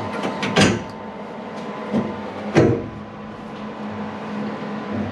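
Steel swing-out door bar on a roll cage being unlatched and swung open: two sharp metal clunks from its hinge and latch fitting, about half a second and two and a half seconds in, with a lighter knock between them.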